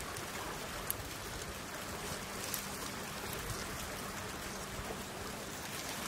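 Steady outdoor background hiss, with a couple of faint, brief high ticks.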